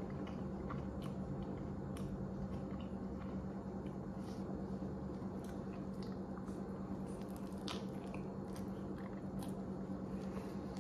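Close-up burger chewing: soft, wet squishing mouth sounds with many small scattered clicks and smacks, over a steady low hum.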